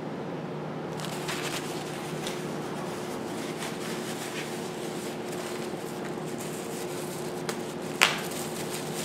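Paper towel wrapping rustling and crinkling as it is handled and unwrapped by hand, with one sharp loud crinkle about eight seconds in. A steady low hum runs underneath.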